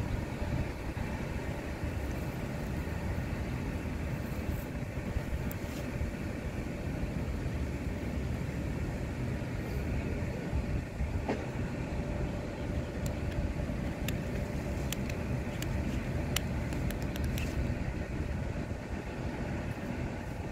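Steady low rumbling background noise, with a few faint clicks in the second half.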